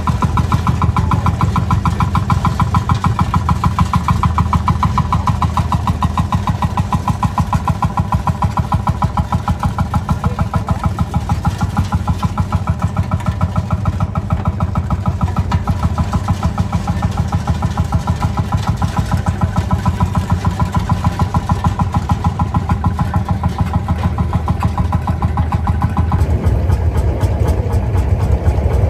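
Landini hot-bulb tractor's single-cylinder two-stroke engine running with an even, rapid beat. The sound changes about 26 seconds in.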